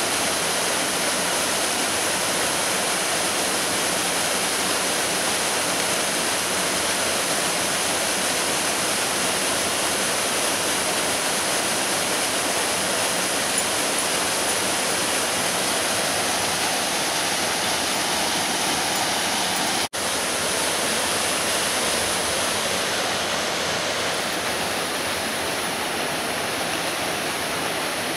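Small waterfall and rocky creek rushing steadily. The rush cuts out for an instant about twenty seconds in, then carries on a little softer.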